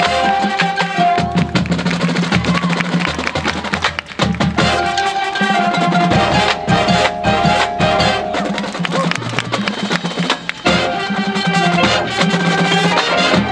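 Marching band playing: brass, drums and front-ensemble mallet percussion, with a few short, sharp breaks in the music.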